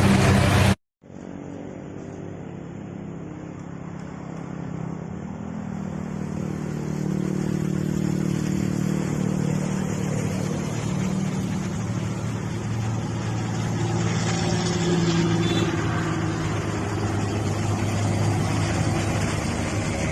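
A bus engine climbing a steep hill, growing louder over several seconds as it draws near, then running steadily. Under a second in, a louder sound cuts off abruptly.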